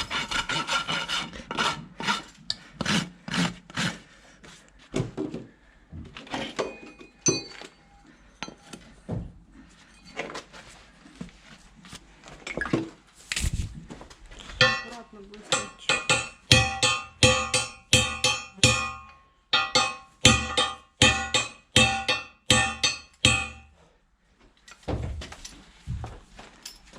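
Hoof rasp and steel tools scraping a horse's hoof in repeated strokes. Through the second half the strokes come as a steady run of about two a second, each with a ringing edge.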